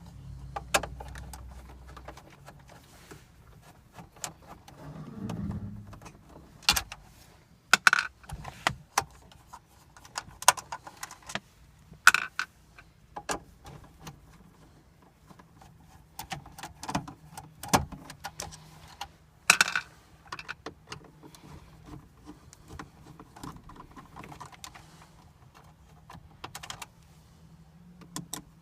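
Scattered small metallic clicks, knocks and rattles from hand work on a car dashboard as the radio's screws are taken out and the radio is worked loose.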